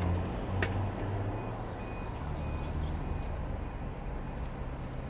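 City street traffic: a vehicle engine hums on the road alongside, with a sharp click about half a second in and a short series of faint high beeps around two to three seconds in.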